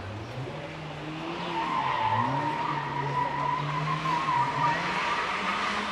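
Rally car engine revving hard through a corner while its tyres squeal in a long steady squeal. The squeal sets in about a second and a half in and stops shortly before the end, with the engine pitch dipping and rising again under it.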